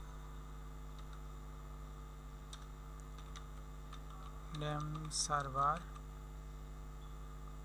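A few faint computer keyboard keystrokes over a steady electrical hum, with a brief stretch of a man's voice about five seconds in.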